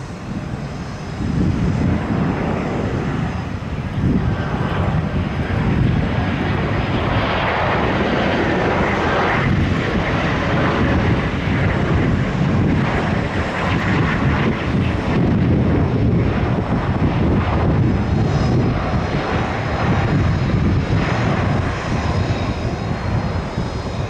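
Airplane engines running, a loud continuous rumble and roar that swells about a second in and holds.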